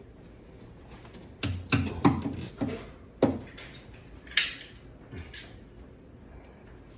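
Several sharp plastic clicks and knocks, then a short scrape about four seconds in, from PVC plumbing pipe and fittings being handled and fitted.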